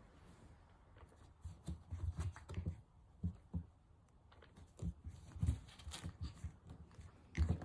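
Scuffling and scratching with scattered light thumps, the sound of a Cavalier King Charles Spaniel puppy scrambling about on the floor; the loudest thump comes near the end.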